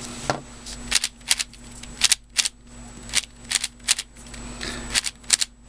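Plastic clicking and clacking of a new MoYu AoSu 4x4 speed cube being turned by hand for its first turns out of the box, a run of sharp, irregularly spaced clicks.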